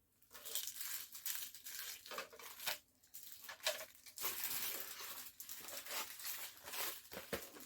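Plastic packaging crinkling and crackling irregularly as it is handled and pulled open.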